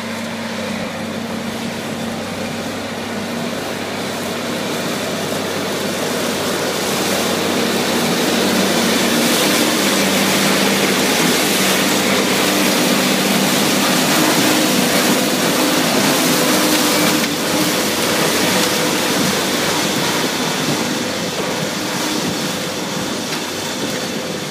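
Tractor and Krone baler with a pre-chop pickup head running as it picks up and bales a miscanthus windrow: a steady mechanical din with engine tones, growing louder toward the middle and easing off near the end.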